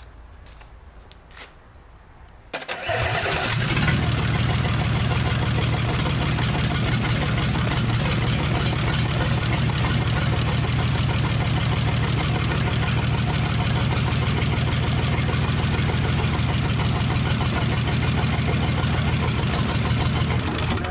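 Isuzu 6BD1 5.7-litre six-cylinder diesel cold-starting after its injection pump has been bled of air: it fires suddenly about two and a half seconds in, picks up within a second and runs steadily, then falls off sharply near the end.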